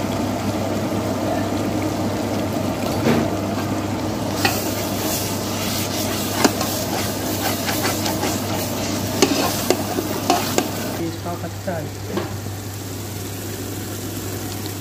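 Long steel ladle scraping and knocking against a large aluminium pot as onion-tomato masala is stirred, frying and sizzling in oil. The scrapes cluster between about four and eleven seconds in, over a steady low hum.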